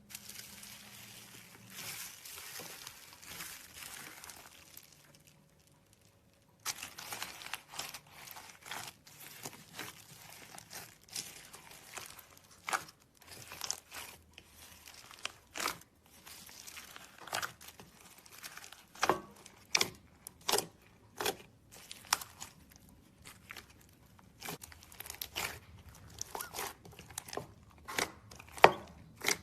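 Slime being handled: a crinkling rustle for the first five seconds or so, then, after a short pause, a long run of irregular sharp pops and clicks.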